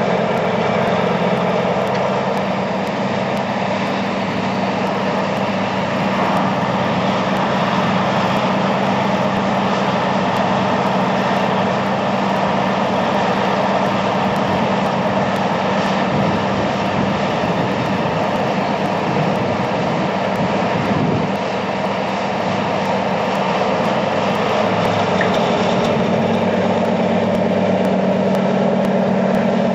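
Simulated diesel engine sound for a model Monighan 10W dragline, running steadily as the machine digs and swings, with slight dips in level twice.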